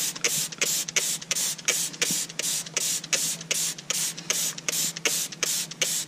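Trigger foam spray bottle of Kyukyutto dish detergent being squeezed rapidly, about four squeezes a second, each a short hiss of foam with a small click of the trigger, coating oily engine parts.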